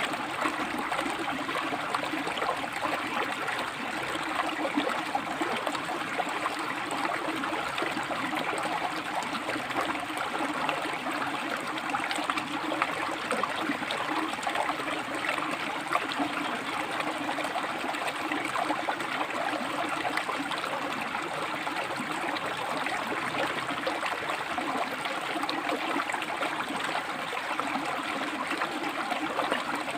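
A river running over and between rocks: steady rushing and gurgling water, with small splashes flickering through it.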